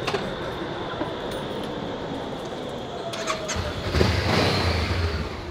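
Street noise, then a motor vehicle engine cuts in loudly about three and a half seconds in, with a rising and fading hiss, and keeps running with a low, even throb.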